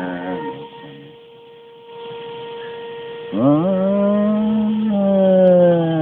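A man's voice crooning a long, drawn-out cat-like "nyaa" note, starting about three seconds in with a quick rise and then sinking slowly in pitch. A faint steady hum runs underneath until shortly before the note peaks.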